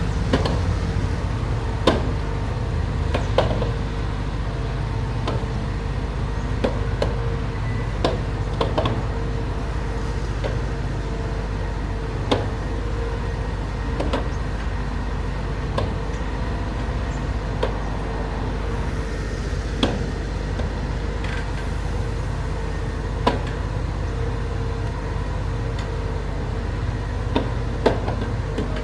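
A vehicle engine running steadily, a low rumble with a constant hum above it, with scattered sharp ticks every second or two.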